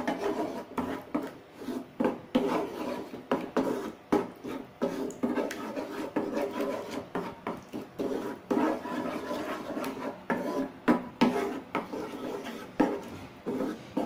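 A cooking utensil scraping and knocking against a pan in quick, irregular strokes, stirring a sauce of garlic, tomato and chili sauce over low heat.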